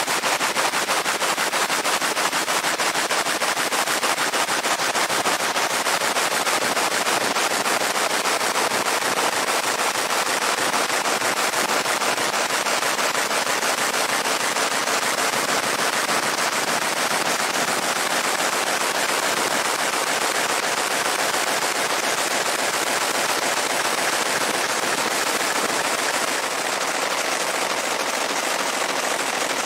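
Fiber laser engraving a steel Glock 19 slide: a steady, rapid crackling buzz as the pulsed beam ablates the metal.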